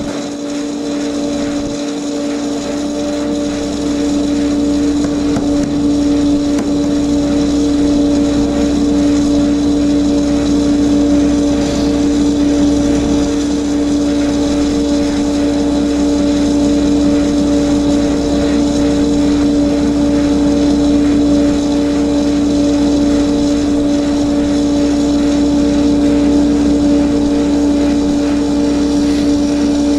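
Walinga High Output Auger (HOAG) unloading system on a bulk feed trailer running steadily while it empties the feed compartment: a constant machine drone with a strong steady hum, rising slightly in the first few seconds.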